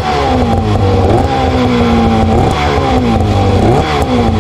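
2011 Arctic Cat M800 snowmobile's two-stroke twin engine running and being revved, its pitch climbing and dropping back in repeated throttle blips.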